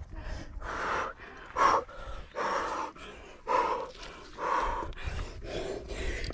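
A rock climber breathing hard under exertion on a strenuous route: loud, forceful exhalations at about one a second, some longer than others.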